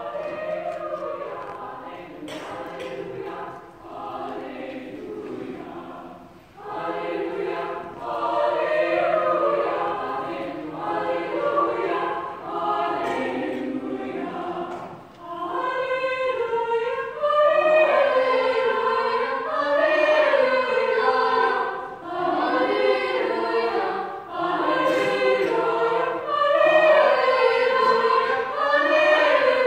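Chamber choir singing, the sound growing fuller and louder about seven seconds in and again around fifteen seconds.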